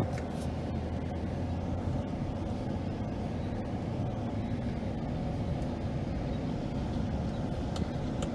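Steady low engine and road rumble of a vehicle driving across a field, heard from inside its cab, with a few faint clicks.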